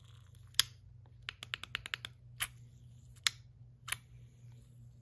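Sharp clicks from a handheld metal clicker fidget, the MOT Gourd in Timascus: one click, then a quick run of about seven, then three more spaced apart.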